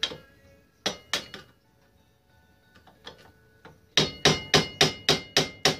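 Hammer striking the metal parts of an ATV's front drum brake, knocking at a lower brake part that is stuck on. Single ringing taps at first, then a quick run of about eight hard strikes near the end.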